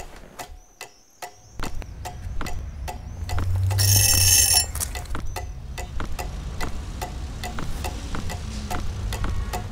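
Suspense sound design: a clock ticking quickly and evenly, with a low rumbling drone swelling in after about a second and a half. About three and a half seconds in comes a bright, ringing swell lasting about a second, the loudest moment.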